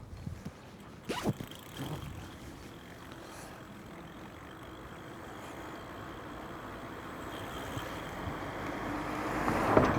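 Wind rushing over the microphone and tyre noise from a 1000W electric bike on a test ride, growing steadily louder as it picks up speed, with a faint steady whine from its electric drive. A single knock comes about a second in.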